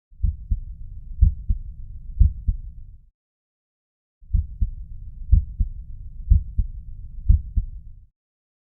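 Heart sounds with a murmur, as heard through a stethoscope: paired lub-dub beats about once a second with a steady low rushing filling the gaps between them. The sound cuts off about three seconds in, resumes a second later, and stops again near the end.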